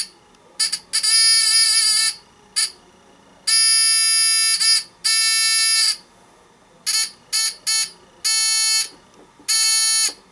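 Small white rectangular 1.5–3 V buzzer run from two AA batteries (3 V), giving a loud, steady-pitched buzz. It switches on and off in irregular bursts, some brief blips and some lasting a second or more.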